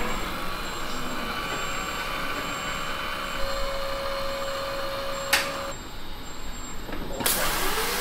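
Lely Astronaut milking robot's arm running its rotating teat brushes to clean a cow's teats before milking: a steady motor whirr with a held whine that stops with a click about five and a half seconds in. Near the end a loud hiss of water spraying over the brushes.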